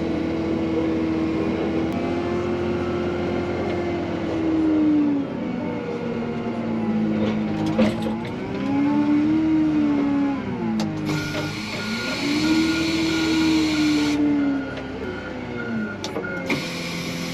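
XCMG wheel loader's diesel engine revving up and falling back again and again while it pushes snow, with a knock or two about eight seconds in. From about eleven seconds in, a reversing alarm beeps steadily for a few seconds over a hiss.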